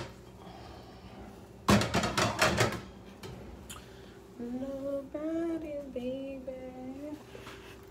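A quick clatter of several sharp knocks about two seconds in, then a voice singing a few wordless notes for about three seconds, over a faint steady hum.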